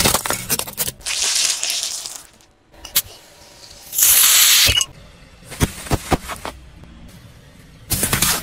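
Car tyre rolling over and crushing small objects: sharp cracks and crunches just after the start and again in the middle, with loud hissing bursts about a second in and about four seconds in as aerosol snow-spray cans are burst under the wheel and jet out. Near the end comes a spraying splatter as liquid-filled plastic toy pistols are crushed.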